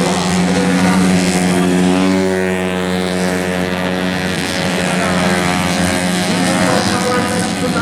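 Tuned 130 cc automatic scooter engines running at high revs during a road race, a steady engine note with other engines' pitch gliding up and down as they pass.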